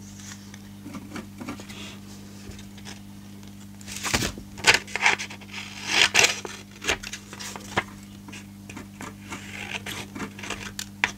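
Small scissors snipping through a sheet of vellum paper, a run of sharp snips about four seconds in and again around six seconds, with softer paper rustling between. A steady low hum runs underneath.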